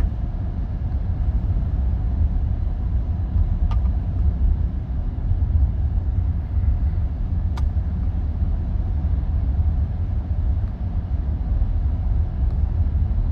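Steady low rumble of a car driving, heard from inside the cabin: road and engine noise, with two faint clicks partway through.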